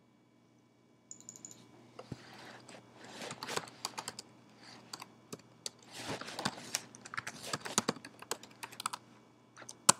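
Typing on a computer keyboard: a quick, irregular run of keystrokes that starts about a second in, with one sharper click at the end.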